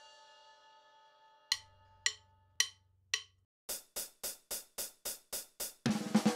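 A ringing chime fades out. Then come four sharp wooden clicks about half a second apart, a drumstick count-in, followed by a quicker run of taps at about five a second. Near the end a loud snare drum roll on a drum kit breaks in.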